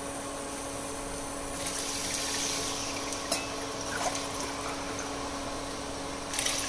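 Water poured from a steel tumbler into a pressure cooker of fried masala and vegetables, the water for a biryani. The pouring grows louder from about one and a half to three seconds in, and again near the end.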